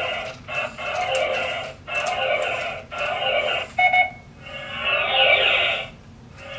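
Vimpro RC smart robot toy playing electronic robot sound effects through its small built-in speaker: a run of bursts about a second long, with a short beep about four seconds in.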